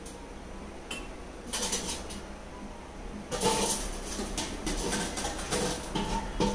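Metal spoon scraping mango pickle out of a steel bowl into a ceramic jar, with clinks of spoon against steel. A few short scrapes at first, then steady, busier scraping from about three seconds in.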